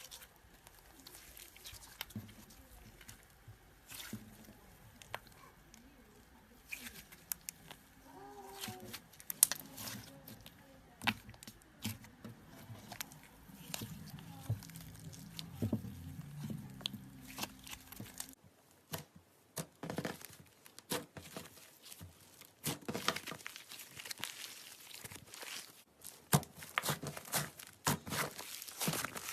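Slime being squeezed, poked and stretched by hand, giving a run of wet clicks, pops and crackles. About 18 seconds in the sound changes abruptly to a louder, denser crackling as another slime takes over.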